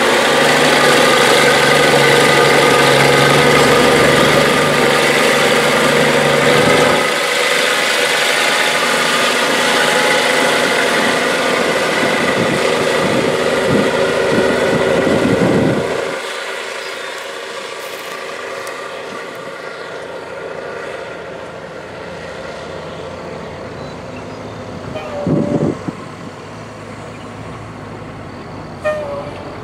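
1978 Versatile 875 articulated four-wheel-drive tractor's Cummins six-cylinder diesel working under load as it pushes silage rye with its front blade. The engine note changes about a quarter of the way in and grows fainter from about halfway as the tractor works farther off. There are two short sounds near the end.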